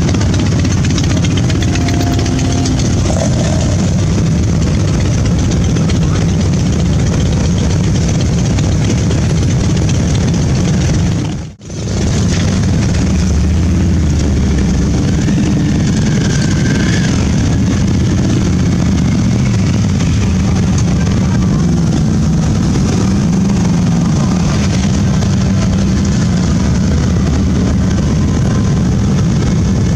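Engines of a column of motorcycles, many of them large touring bikes, running as they ride slowly past. The sound is a steady, dense low drone, broken once by a brief dropout about twelve seconds in.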